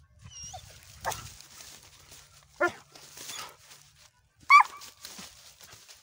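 Chocolate pointer dog giving three short barks about a second and a half apart, the last one the loudest and highest.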